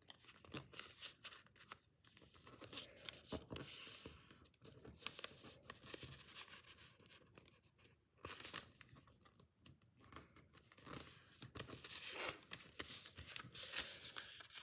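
A sheet of origami paper rustling and crinkling as hands fold it and press the creases flat. It comes on and off, with a sharp crackle about five seconds in.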